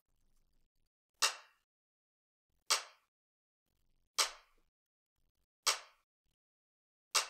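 Dry programmed hip-hop clap sample from the TrackGod plugin, with no effects added, playing alone in a steady pattern: five identical sharp claps about a second and a half apart, every other beat at 81 BPM.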